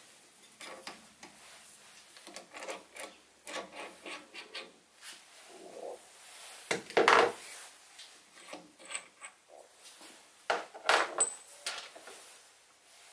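A Sieg SC3 mini lathe's quick-change tool post is unlocked and lifted off its stud on the compound slide, with metal scraping, clicking and a few knocks. The loudest knocks come about seven seconds in and again around eleven seconds.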